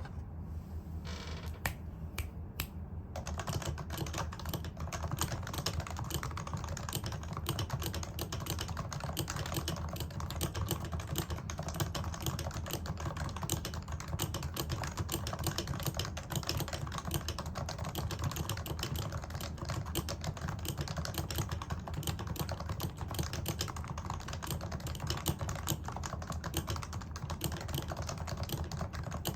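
Typing on an HHKB Pro 2 keyboard with Topre electrostatic capacitive switches, domes lubed. A few separate keystrokes in the first three seconds, then fast, steady typing. The spacebar ticks, which the owner puts down to its not having been lubed.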